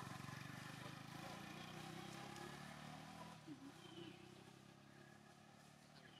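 A passing road vehicle's engine, a low drone that slowly fades away.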